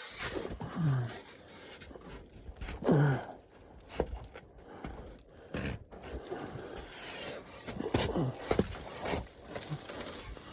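Canoe paddle scraping and knocking against ice as the ice is broken, with a few short grunts of effort in between.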